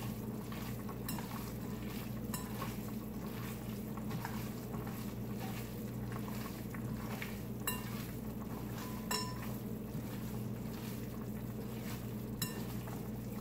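Hands mixing a ground-beef patty mixture in a bowl, with about five light clinks of the bowl spread through, over a steady low hum.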